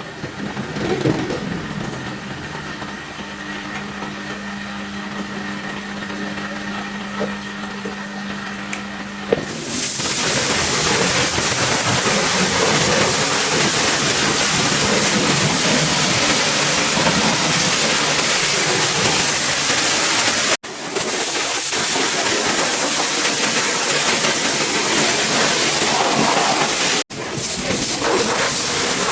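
A machine hums steadily. About nine seconds in, a loud hissing spray starts abruptly and runs on, typical of a pressure washer jet on a car, with two sudden brief cut-outs.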